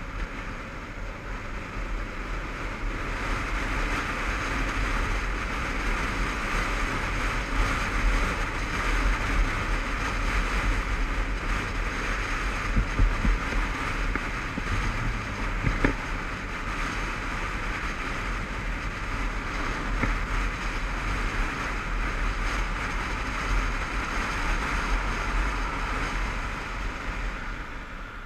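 Wind rushing over a helmet-mounted action camera on a Honda CBF500 motorcycle at road speed, over a low rumble from the bike. It builds a few seconds in and eases near the end.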